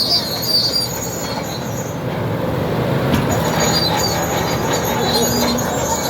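Komatsu D80A crawler bulldozer working: its diesel engine running under load while the steel tracks squeal and clank.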